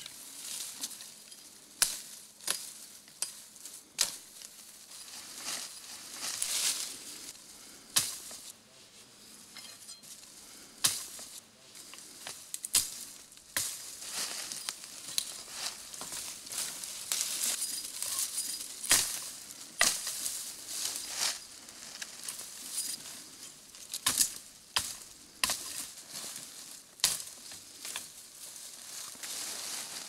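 Heather stems and brush being cut and broken: sharp snaps and cracks at irregular intervals, among the rustle of branches and leaves pushed aside.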